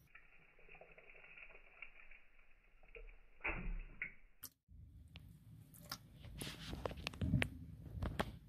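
Slowed-down, muffled audio of an African bullfrog's feeding strike on a king worm, with a dull thump about three and a half seconds in. After a sudden cut, a run of sharp wet clicks and squishes as the frog works the worm down.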